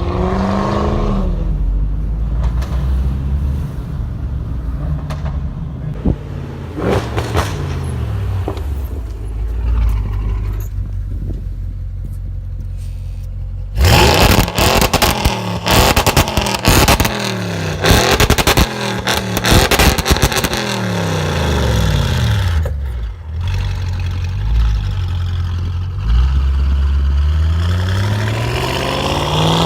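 Audi RS6 C7's twin-turbo V8 on a Milltek exhaust with catless downpipes, revving repeatedly, its pitch climbing and falling. About halfway through, a dense run of loud exhaust crackles and pops comes as the revs drop, with the engine rumbling low in between, and it revs up again near the end.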